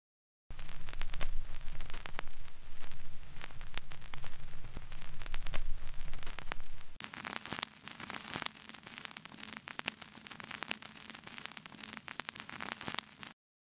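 Vinyl-crackle sample loops auditioned one after another. First a loud, dense crackle with a low hum underneath. About seven seconds in it switches to a quieter, thinner surface hiss with scattered clicks and pops, which stops just before the end.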